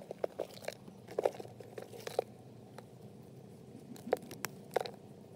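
Bare hands scraping and pressing loose clay soil around a cut plastic oil container sunk in a hole, giving a few sharp crunches and crackles, about a second and two seconds in and twice more near the end.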